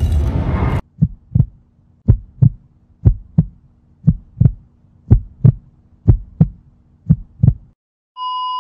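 A heartbeat sound effect: seven double thumps, about one pair a second, over a faint low hum. Before it a dense rumbling noise cuts off abruptly just under a second in, and near the end a steady high electronic tone begins.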